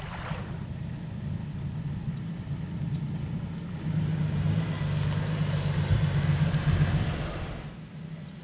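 Toyota Hilux engine running as the four-wheel drive drives on a dirt track, a steady low hum that grows louder about halfway through and eases off near the end.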